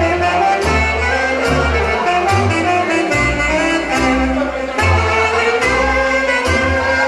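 Romanian folk dance music: a wind-instrument melody over a steady bass-and-drum beat.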